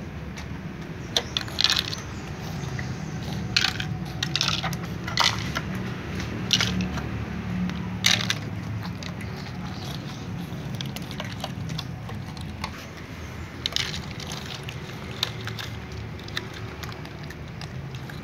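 Several cats crunching dry kibble from small dishes, with irregular sharp clicks and crackles as teeth bite down and the dishes are knocked.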